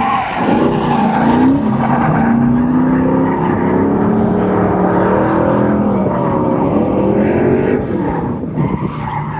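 Drift car engine revving, its pitch rising and falling repeatedly as the car is driven through a drift, over a haze of tyre noise.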